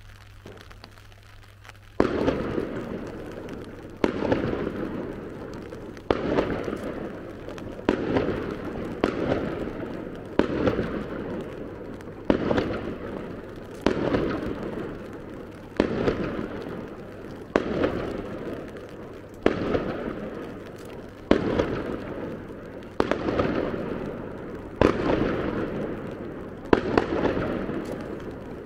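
Aerial firework shells bursting overhead, a sharp bang about every one and a half to two seconds, each dying away in a long rolling echo. The first couple of seconds are quiet before the bangs begin.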